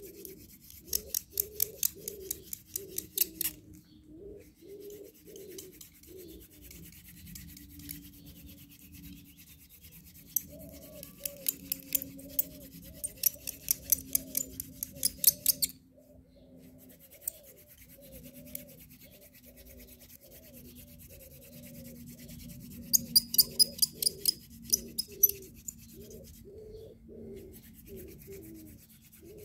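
Hand-drill fire-making: a wooden spindle spun back and forth between the palms, grinding into a wooden hearth board with a rhythmic rubbing of a few strokes a second. Three bursts of rapid, sharp ticking sound over it, near the start, in the middle and near the end.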